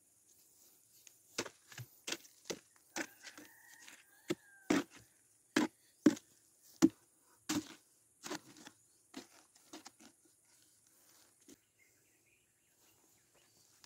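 A long-handled tool jabbing and chopping at the rotten core of a hollow dead buri palm trunk section: irregular sharp woody knocks, one or two a second, that stop about ten seconds in.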